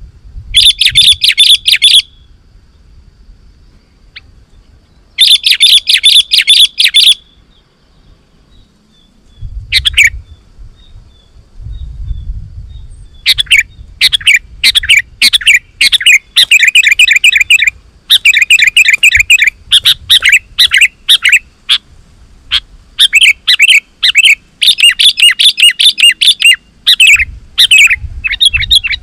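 Sooty-headed bulbul (kutilang) calling loudly in fast, excited chattering phrases. There are two bursts in the first several seconds, then from about halfway through a near-continuous run of quick, repeated notes.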